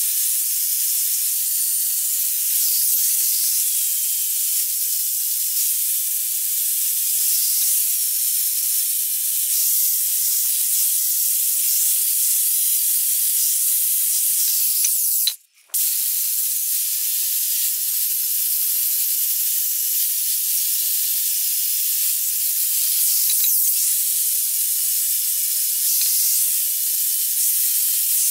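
A steady, high hiss that breaks off completely for about half a second roughly halfway through.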